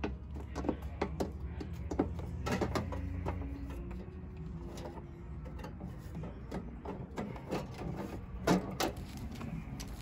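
Black plastic RV water-heater access door being handled and pressed back into its frame: a series of plastic clicks and knocks over a low steady hum.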